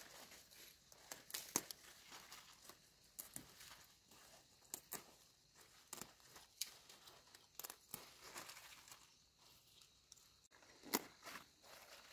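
Faint, irregular rustling and crinkling with scattered sharp snaps, the sharpest about a second and a half in and again near the end.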